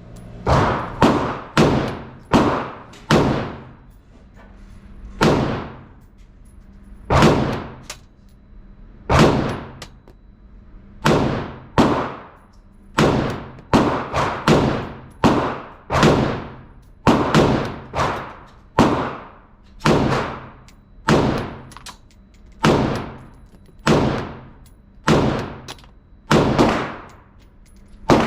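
Colt AR-15-pattern rifle firing semi-automatic, more than two dozen single shots, each with a ringing tail. A quick string of shots about half a second apart comes first, then a steadier pace of about one shot a second.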